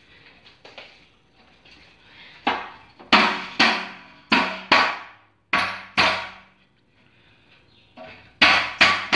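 Metal wood-stove parts clanking together as they are fitted onto the drum body: a run of sharp metallic knocks, each ringing briefly, from a few seconds in, then a second cluster near the end.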